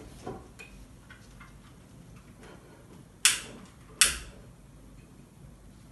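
A lighter struck twice, two sharp clicks about three-quarters of a second apart, lighting a candle; a few faint small knocks come before them.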